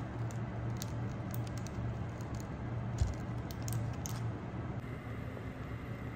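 Light handling noises of an enamelled cast-iron Staub pot being held and set on a fabric mat with oven mitts: small clicks and rustles of parchment paper, and one dull thump about three seconds in, over a steady low hum.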